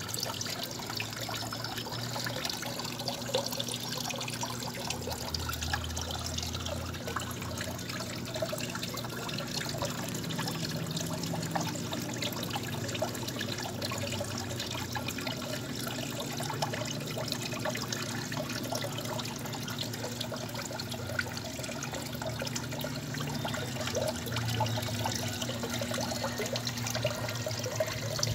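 Water trickling steadily into the turtle tank, with a faint low hum underneath.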